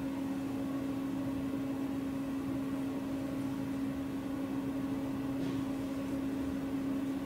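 A steady machine hum, one strong low tone over a faint even hiss, unchanging throughout.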